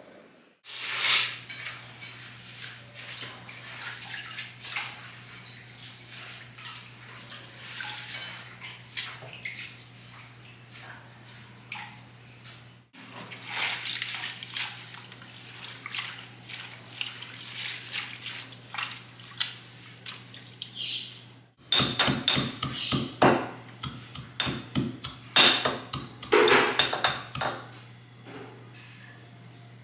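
Tap water running and splashing into a steel bowl as a bunch of fenugreek leaves is rinsed by hand. Near the end there is a quick series of sharp metallic clinks and knocks as small brass vessels are handled.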